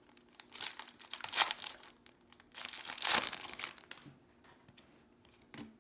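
Foil trading-card pack wrapper crinkling and tearing as it is opened and handled, in two main bursts about a second in and about three seconds in, with lighter rustling between.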